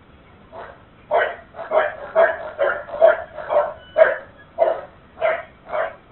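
A dog barking steadily, about two barks a second, beginning about a second in, heard through a security camera's microphone.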